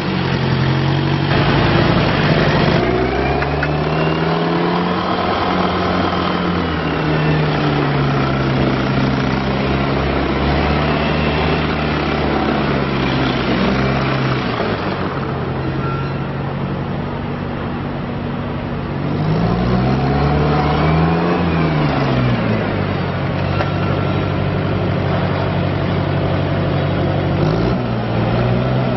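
Small three-speed diesel utility tractor engine running, its pitch rising and falling several times as it revs up and settles back.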